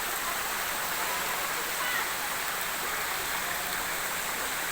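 River water flowing over rocks: a steady rushing noise.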